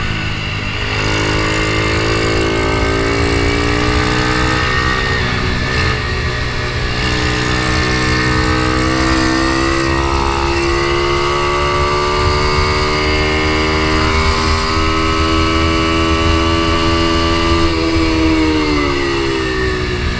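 Ohvale mini GP motorcycle engine heard onboard under race use: the pitch drops at the start as it slows for a corner, then climbs and holds high through a long stretch at full throttle, with small dips at the gear changes, and falls again near the end as it slows for the next bend.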